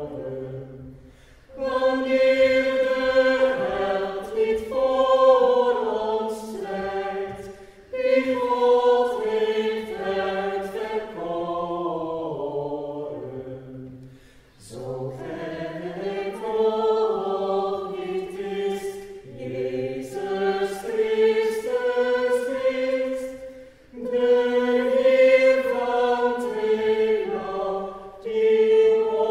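Small mixed choir of men's and women's voices singing a cappella, in long phrases with short pauses for breath between them.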